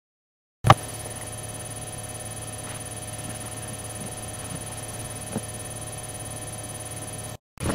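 Steady electrical hum of room tone, with a low drone and a thin high whine, after a moment of dead silence at the start. A single thump comes just under a second in, and a faint tick comes about five seconds in.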